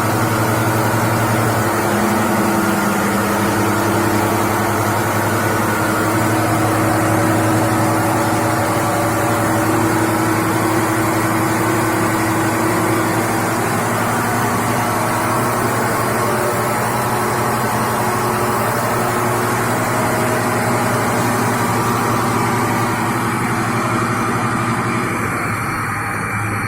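Homemade belt grinder driven by a washing-machine motor, running steadily with a constant hum and the hiss of the abrasive belt. Near the end the hiss fades and the sound begins to die away.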